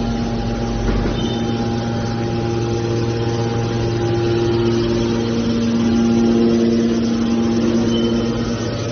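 Hydraulic metal shear baler's power unit running with a steady, pitched hum, growing a little louder in the second half.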